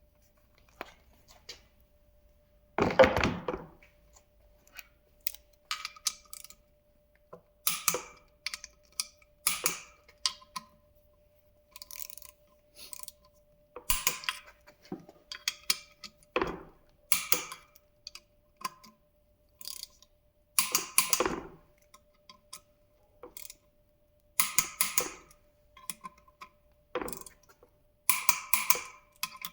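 Ratchet of a small torque wrench clicking in short runs, pausing between each, as the Duramax LB7 intake manifold bolts are run down and torqued to about 18 foot-pounds. A louder knock about three seconds in.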